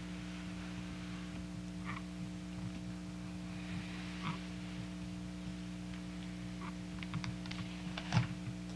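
Quiet room tone with a steady electrical hum, overlaid by faint scattered clicks and rustles and a sharper click about eight seconds in.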